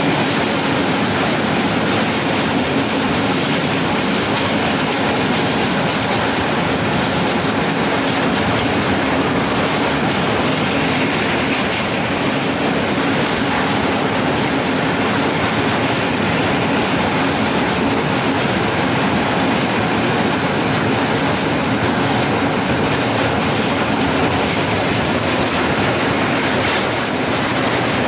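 Freight wagon rolling along the track, heard from on board: a loud, steady rumble and rattle of wheels on rails and the shaking wagon body, with a steady low drone underneath.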